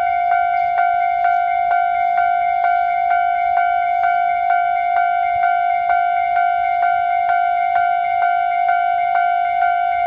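Japanese railway level-crossing warning bell ringing at a steady, even rate of nearly three strikes a second, each strike carrying a clear ringing tone. It signals that the crossing is closed for an approaching train.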